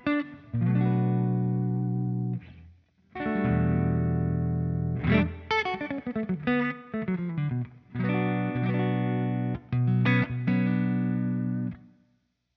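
Electric guitar (a PRS Studio) played through a GFI System ORCA delay pedal into a Fender Super Sonic 22 amp: sustained chords separated by short breaks, with a falling run of notes in the middle, the playing stopping shortly before the end.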